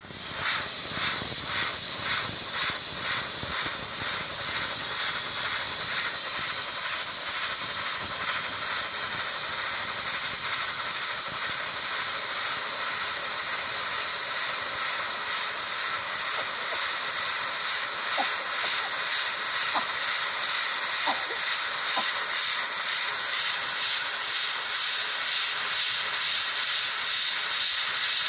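Steam jetting hard from a pressure cooker's vent: a loud, steady hiss with a quick pulsing flutter of about three beats a second at times.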